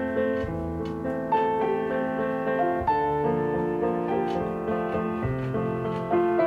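Background piano music: a gentle melody of held notes and chords.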